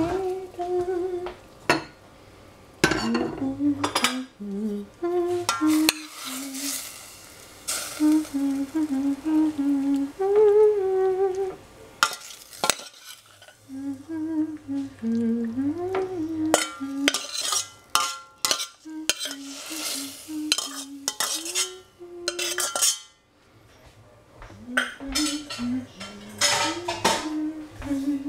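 A woman humming a tune with no words, over scrapes and clatters of a spatula against the pan and a ceramic bowl as stir-fried vegetables are served out, with a little sizzling.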